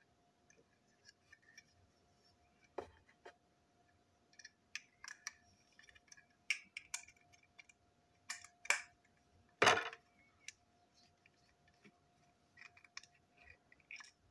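Small plastic toy-train parts and small screwdrivers being handled and set down on a tabletop: scattered light clicks and taps, with one louder knock about ten seconds in, over a faint steady hum.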